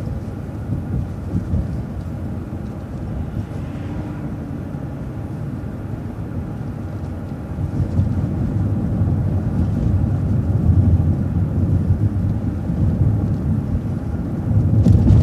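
City transit bus travelling along the road, its engine and tyre noise a low, steady rumble that grows louder about eight seconds in as it picks up speed.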